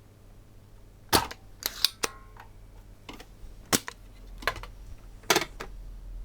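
A series of about seven sharp, irregular clicks and snaps from small hand tools and parts being handled at an electronics repair bench, the loudest about a second in, near the middle and about two-thirds of the way through.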